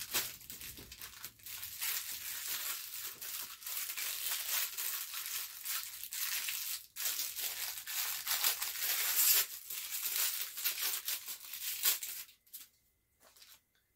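Plastic packaging crinkling and rustling as a package is handled and torn open, a dense crackle that stops about twelve seconds in.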